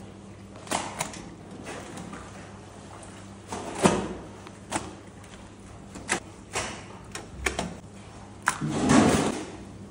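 Raw beef slices for döner being handled and laid into stainless steel trays by hand: irregular wet slaps and knocks, with a heavier thud about nine seconds in, over a steady low hum.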